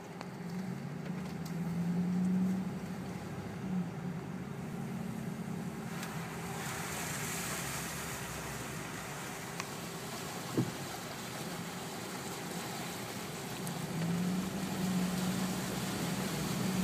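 Vehicle engine running, heard from inside the cab, while the tyres push through floodwater: a steady hiss of water spray comes in about six seconds in. A single short thud about ten seconds in.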